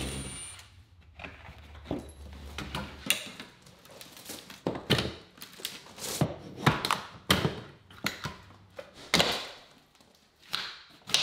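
Hammer striking a flat pry bar behind painted wooden window trim, and the trim cracking as it is levered off the wall: a series of sharp knocks and wood cracks at irregular intervals.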